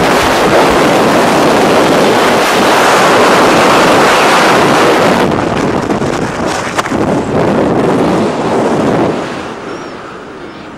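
Loud freefall wind rushing over a skydiving camera's microphone. It thins about five seconds in, then fades steadily over the last two seconds as the parachute opens and the fall slows.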